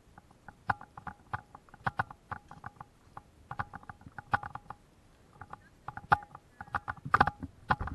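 Footsteps on narrow wooden boardwalk planks: an irregular series of sharp knocks, about two a second, each with a short ring. A louder cluster of knocks comes near the end.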